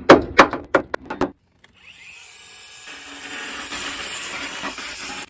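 A power tool cleaning back paint and rust on the car's steel body panel: a steady scouring hiss that builds from about two seconds in and cuts off at the end. A man's voice is heard briefly before it.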